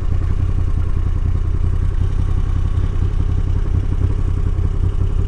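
Moto Guzzi V85 TT's air-cooled transverse 90° V-twin idling steadily, with an even low pulsing beat and no revving.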